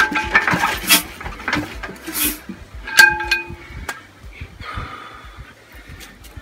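Metallic clanks and clinks from an Imperial Super Diesel hit-and-miss engine being turned over and handled at its flywheel. A sharp ringing clank about three seconds in is the loudest. The sounds thin out over the last couple of seconds.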